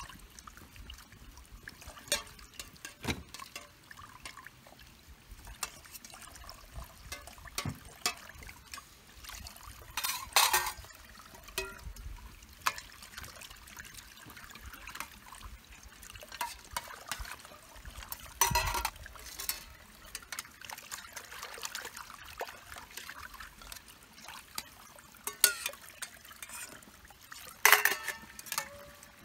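Water trickling steadily from the tap of a 20-litre water tank into a stainless steel pot as it is scrubbed by hand, with scattered knocks and a few louder clatters of the pot being handled, about ten seconds apart.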